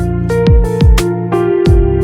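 Background music with an electronic beat: sustained chords over deep kick-drum hits that drop in pitch, with crisp percussion on top.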